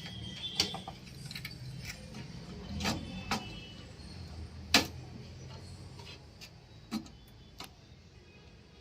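Sharp clicks and light knocks of a DDR4 RAM stick being handled and pressed into its motherboard slot, about six in all, the loudest just under five seconds in.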